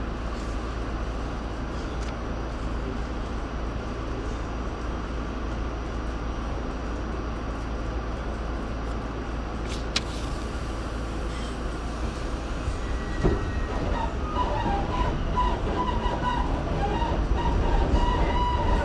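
R68 subway train running with a steady rumble, a single sharp click about ten seconds in. From about thirteen seconds it grows louder, with high-pitched tones ringing over the rumble.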